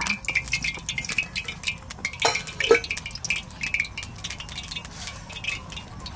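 Hand mixing rice and curry on a stainless steel plate: many small clicks and scrapes of fingers and food against the metal, with a couple of louder knocks a little over two seconds in.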